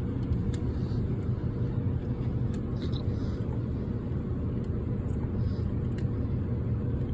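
Steady low background rumble with a few faint clicks; no gunshots.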